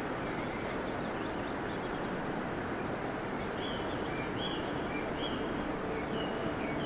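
Birds singing in short, repeated chirping phrases over a steady rushing background noise. Low sustained notes fade in near the end.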